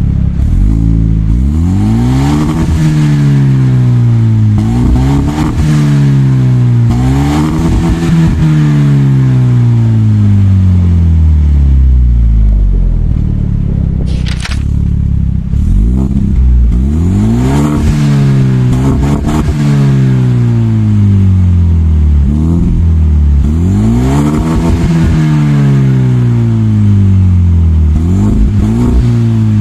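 Hyundai Genesis Coupe 2.0T's turbocharged four-cylinder engine, breathing through a high-flow air filter, revved again and again while parked, heard at the tailpipe. Each rev climbs and falls back toward idle, in clusters, with a longer settle back to idle about halfway through.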